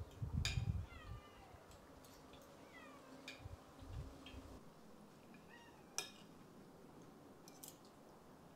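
Spoons and forks clinking against ceramic plates and bowls while eating, with a few dull low thumps in the first half. A few short animal cries, each falling in pitch, come in about a second in, near three seconds and near six seconds.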